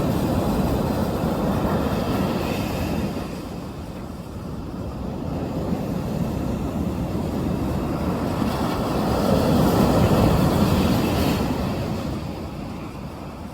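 Sea waves breaking on the shore, a rushing surf noise. It eases about four seconds in, swells to its loudest around ten seconds, then falls away near the end.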